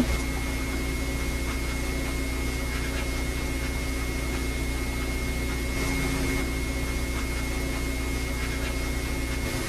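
Steady hum and hiss with a thin, high, steady whine and no distinct events; the deepest part of the hum drops away near the end.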